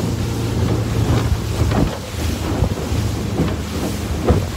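Wind buffeting the microphone on a boat under way, with water rushing past the hull and a steady low engine hum beneath.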